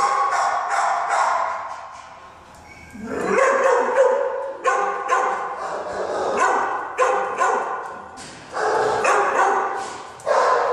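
Dogs in a shelter kennel barking over and over, with a short lull about two seconds in.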